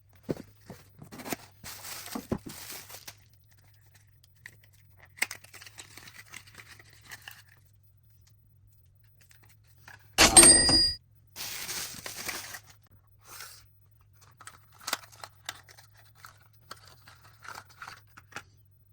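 Packaging being torn open and crinkled by hand in short, scattered bursts. About ten seconds in there is one loud, short clink that rings briefly.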